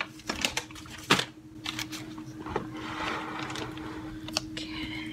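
Handling noise from the recording phone or camera being moved back: a few knocks and clicks, the sharpest about a second in, then rustling. A faint steady hum runs underneath.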